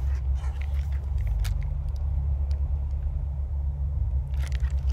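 Low, steady rumble throughout, with a few faint ticks and rustles.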